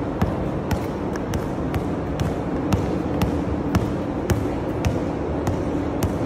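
A basketball being dribbled by a small child on an indoor court floor, bouncing about twice a second. A steady hum runs underneath.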